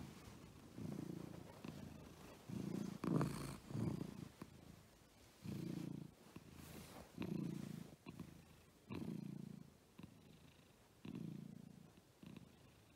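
Domestic cat purring close up, a low rumble that swells and fades in a steady rhythm of about one purr every one and a half to two seconds with each breath. One louder, breathier purr comes about three seconds in.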